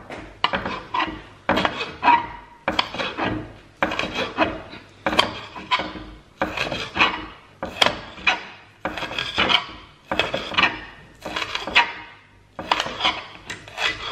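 Kitchen knife slicing a spring onion on a chopping board: a steady run of short cuts, about two a second, each ending on the board.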